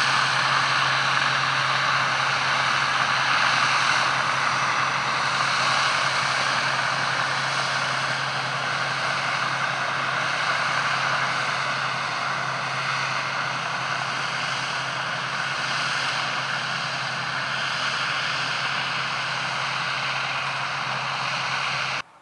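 John Deere 6R-series tractor working a PTO-driven slurry spreader that throws slurry out as it goes: a steady engine drone with a constant low hum, unchanged throughout and cutting off suddenly near the end.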